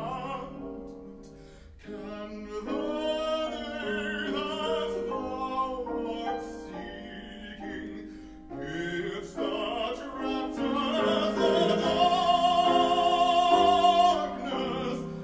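A male classical singer sings in operatic style with vibrato, accompanied by a grand piano. Near the end he holds one long note, the loudest part.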